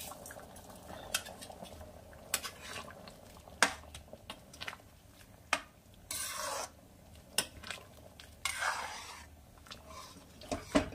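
A metal spoon stirring thick chana dal in a metal kadai, clinking against the pan now and then and scraping through the dal in short strokes. At the start, dried fenugreek leaves are rubbed between the hands over the pan.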